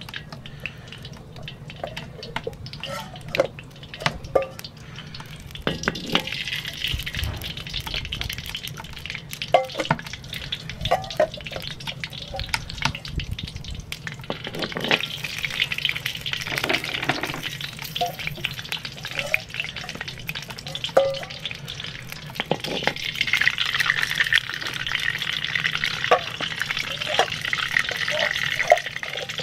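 Hot oil sizzling and hissing in a cast-iron cauldron as wet, oiled flat river stones are set in one by one, with short knocks of stone on the iron. The hiss comes from water left on the freshly washed stones; it starts a few seconds in and swells again near the end.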